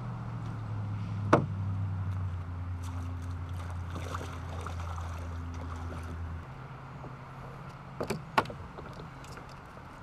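Knocks on a plastic sit-on-top fishing kayak as it is launched off a boat ramp: one sharp knock a little over a second in and two close together near the end, with light water noise. A steady low hum runs underneath and stops about two-thirds of the way through.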